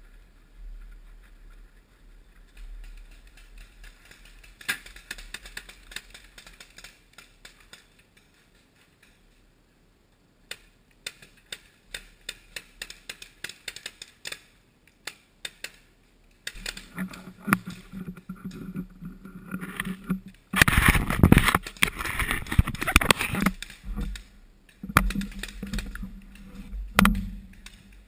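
Paintball markers firing in scattered sharp pops, several a second at times. In the second half a louder rumbling, buffeting noise on the microphone takes over, loudest for a few seconds just past the middle.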